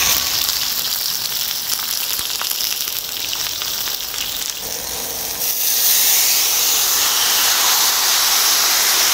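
Pork belly and bone-in pork chops sizzling and crackling in oil on a large cast-iron cauldron-lid griddle, with many small pops in the hiss. The sizzle grows louder and steadier a little past halfway.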